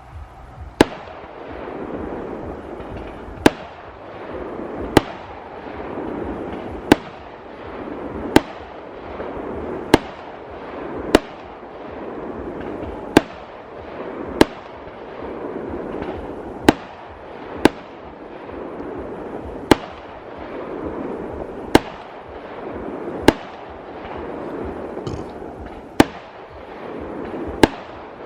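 Fireworks display: aerial shells bursting in about sixteen loud, sharp bangs, one every second or two. Between the bangs a noisy rush swells and fades.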